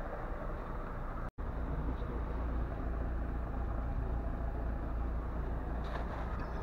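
Car engine idling, a steady low rumble. It cuts out completely for an instant about a second in.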